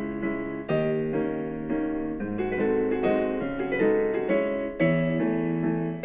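Background piano music: chords and notes played at an unhurried pace, each struck and left to ring.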